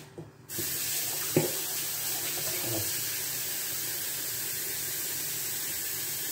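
Water running steadily from a kitchen tap, turned on about half a second in, with a short knock about a second later.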